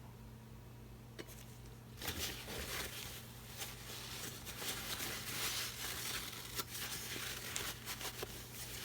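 A knife being swiped across wet acrylic paint on a canvas, an irregular scraping and rustling that starts about two seconds in.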